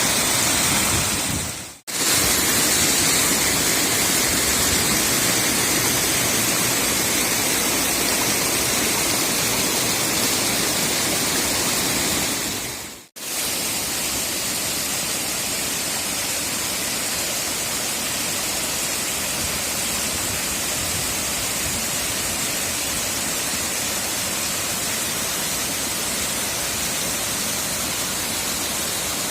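Fast-flowing water rushing steadily, heard in three stretches split by brief fade-outs about two seconds and thirteen seconds in.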